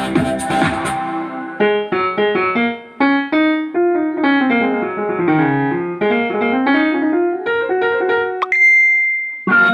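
Roland EX-20 keyboard playing: a rhythm pattern stops about a second in, then single notes run down and climb back up, a high note is held near the end, and a chord follows. The keyboard is sounding again after repair of its no-sound fault.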